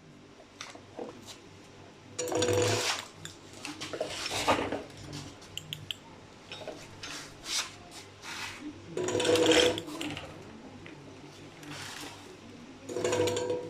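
E-bike conversion kit motor run at low revs in several short spurts, a grinding sound coming with its whine each time. The owner is asking what causes it; it comes at low revs with a new controller fitted.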